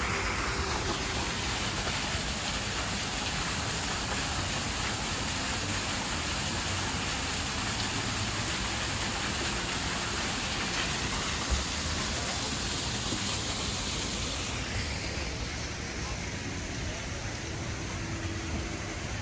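Steady rush of water from a small ornamental waterfall pouring over rocks into a pond, with a single short knock about halfway through.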